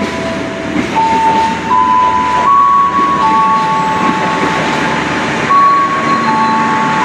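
Electric commuter train rolling slowly along the track, with a rumble underneath and one or two steady high squealing tones that jump to a new pitch every second or so, typical of wheel flanges squealing against the rails.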